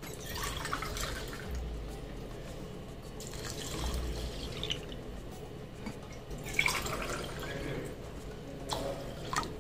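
Water poured into a bowl of washed moong dal and rice, splashing and trickling over the grains as the bowl fills for soaking.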